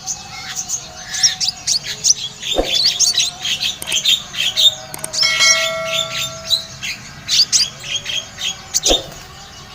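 Konin (kolibri ninja) songbird singing a fast, continuous run of high chirps and twitters, with a few held whistled notes in the middle. Two sharp clicks sound, about two and a half seconds in and near the end.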